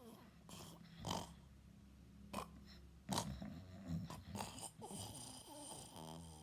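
A sleeping teenager snoring, in short irregular snorts and breaths.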